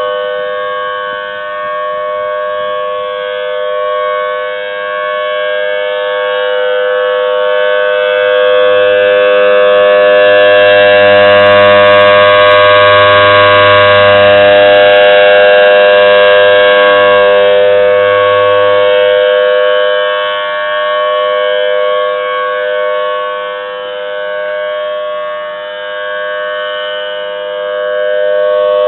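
Federal Signal Thunderbolt 1000T civil defense siren sounding a steady tone on its monthly test. The pitch holds level while the loudness swells, peaks about midway, fades and rises again near the end as the rotating horn sweeps past and away.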